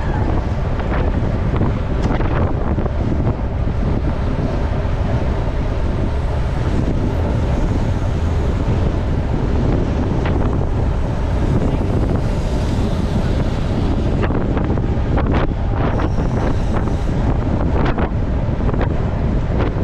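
Heavy wind buffeting the microphone of a bicycle riding fast, with steady tyre noise and scattered clicks and rattles.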